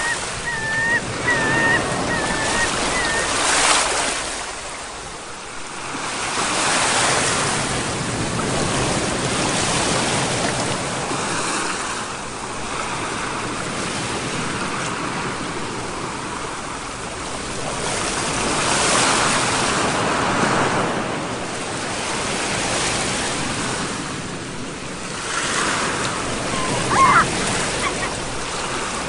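Ocean surf: waves breaking and washing ashore in slow swells that rise and fall every several seconds. A bird gives short wavering calls in the first few seconds and a brief call near the end.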